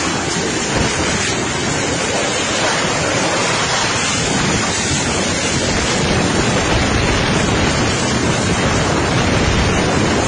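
Tornado wind and heavy rain buffeting a security camera's microphone: a loud, steady rush of noise without a break.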